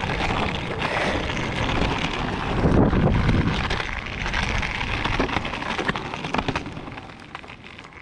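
Wind buffeting the microphone of a handheld camera carried on a walk: a continuous rushing noise with low rumble and crackle that eases off near the end.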